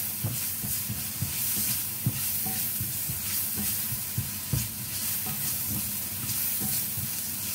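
Onion and ginger sizzling in hot oil in a frying pan, stirred with a spatula that knocks and scrapes against the pan at irregular intervals.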